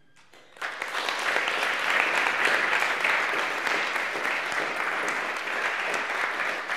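Audience applauding, starting about half a second in and continuing steadily.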